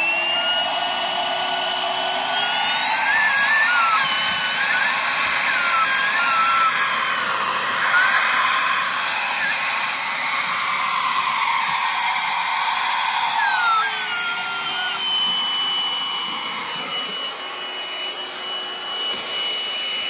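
Bagless vacuum cleaner running at full power with a high whine. About two to three seconds in its pitch rises and holds, then falls back about fourteen seconds in, with wavering whistles of air while it runs high.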